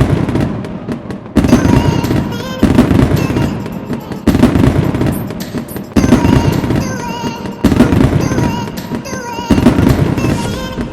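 Firecrackers crackling in dense, rapid strings, with a fresh surge about every one and a half to two seconds that fades away. Music plays along with it.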